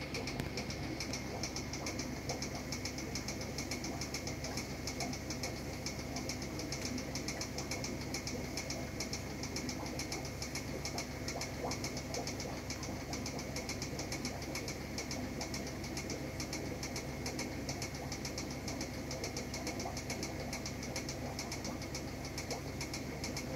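Aquarium pump running: a steady mechanical hum with a fast, even rattle.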